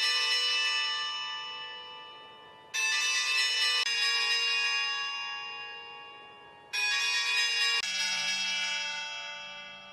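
Bells struck one after another, about five strikes of different pitches, each note ringing out and slowly fading before the next.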